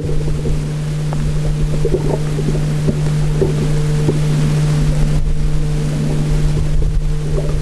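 A steady low engine hum with irregular crackling over it, heard underwater.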